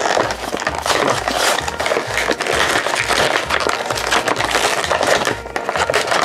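Clear plastic blister packaging of a die-cast toy car pack crackling and crunching as it is pried and torn open by hand, over background music with a steady beat.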